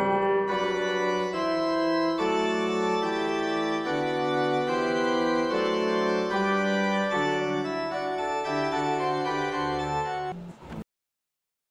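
Background music of held, slowly changing chords. It cuts off abruptly near the end and leaves silence.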